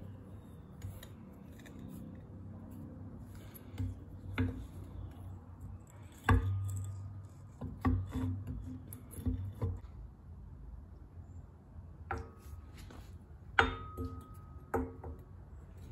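Intermittent metal clanks and knocks of steel axle parts being handled and fitted on a Dana 30 front axle, a few strikes ringing briefly; the loudest come about six seconds in and again near fourteen seconds.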